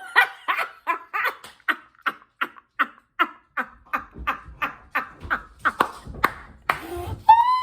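Dog barking in a quick, even run of short yaps, about three a second, then a long rising-and-falling call near the end.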